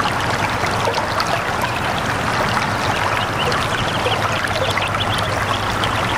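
Steady rush of flowing water, with small birds chirping faintly over it.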